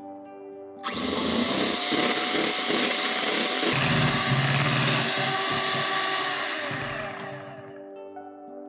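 Electric hand mixer running, its twin wire beaters whipping egg whites with sugar in a glass bowl. It starts sharply about a second in, runs steadily, then fades away near the end.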